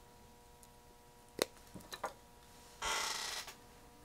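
Hands handling small electronic parts on a workbench: a sharp click, a few small clicks, then a short rustle about three seconds in, over a faint steady hum.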